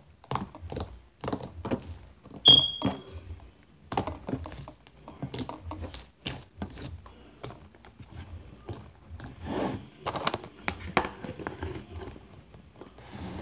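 Sticky homemade slime squished and poked by hand, giving a run of short wet clicks and pops. A brief high squeak stands out about two and a half seconds in.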